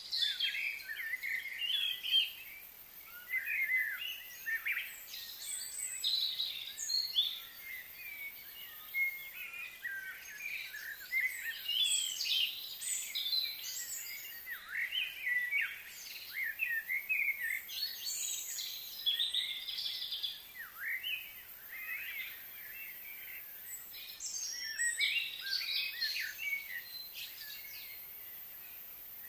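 Birds chirping and calling in a dense chorus of short, quick chirps. The chorus thins out briefly about two-thirds of the way through and again near the end.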